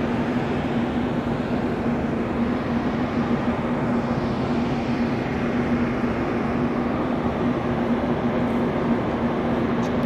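Locomotive standing at the station platform: a steady hiss with a constant low hum running under it.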